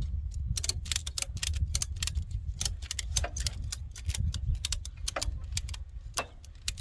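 Rapid, irregular metallic clicking and clinking, several clicks a second, over a low rumble.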